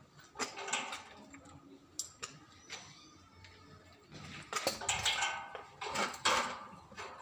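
Scattered clicks and rattles of a plastic LNB holder and its metal fittings being handled and fitted onto a satellite dish's feed arm, with a louder stretch of rustling and scraping about four to six seconds in.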